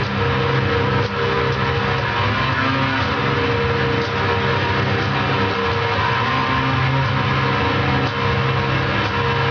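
Loud, dense, doom-style drone of distorted instruments: sustained low notes and held higher tones over a wall of noise, unbroken throughout.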